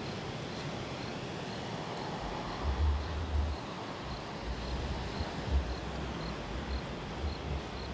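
Night ambience: a cricket chirping steadily about twice a second over a steady hiss, with irregular low rumbles on the microphone from about three seconds in.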